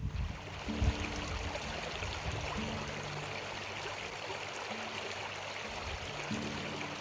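Stream water running steadily, with soft background music of low held notes that change every second or two.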